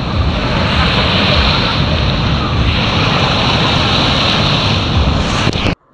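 Surf washing onto a sandy beach, with wind buffeting the phone's microphone as a heavy rumble; it cuts off suddenly near the end.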